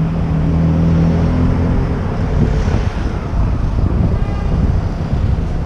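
Street traffic: a vehicle engine runs with a steady low hum for about the first two seconds, then gives way to general passing-traffic noise.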